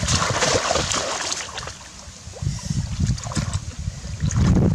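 Splashing and sloshing of shallow muddy water as people wade and grope with their hands for fish, loudest in the first second and a half, then quieter, broken by low rumbles.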